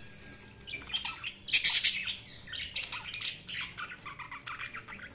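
Budgerigars chirping and warbling, a busy run of quick notes with a louder burst of rapid chirps about a second and a half in.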